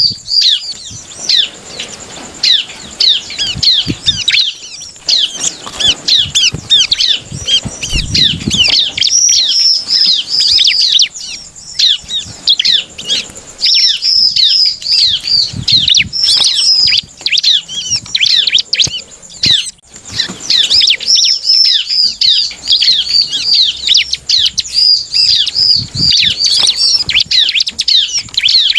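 Bar-winged prinia (ciblek) singing a fast, almost unbroken run of sharp, quickly falling chirps, with a few short breaks. Its wings flutter and there are soft thumps as it flits around the cage.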